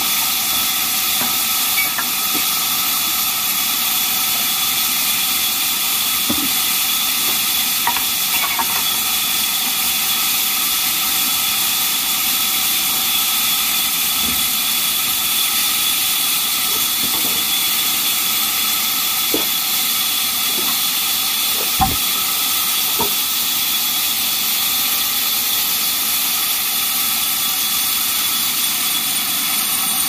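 Large sawmill band saw running and cutting timber: a constant high-pitched hiss with a faint whine, with a few light knocks of wood being handled, the sharpest about two-thirds of the way through.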